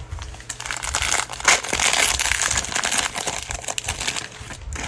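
Crinkly plastic wrapper of a 2021 Mosaic Football cello trading-card pack being handled and ripped open, a dense crackling that builds about half a second in, is loudest in the middle and thins out near the end.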